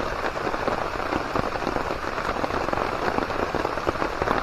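Steady rain falling, a dense, even stream of drop impacts close by.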